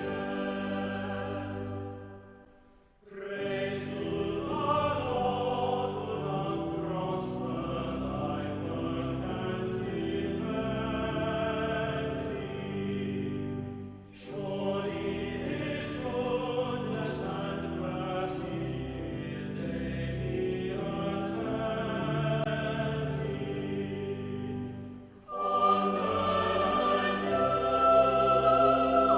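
Choir singing in sustained phrases, with short pauses between phrases about three seconds in, near the middle and shortly before the end.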